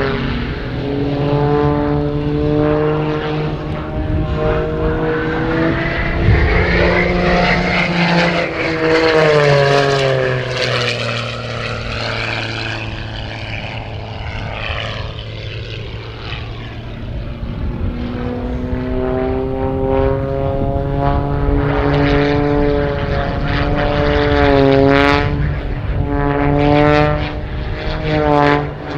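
Edge 540 aerobatic monoplane's piston engine and propeller during an aerobatic display. The drone slides steadily in pitch, drops about nine seconds in and fades somewhat mid-way, then grows louder again. Near the end the pitch wavers rapidly up and down as the plane tumbles and turns.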